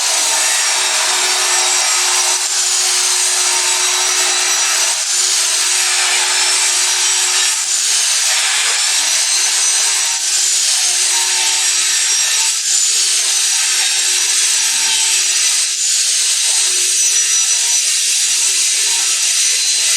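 Table saw ripping strips from a wooden board, running steadily with a high whine that dips and recovers as the blade takes the cut.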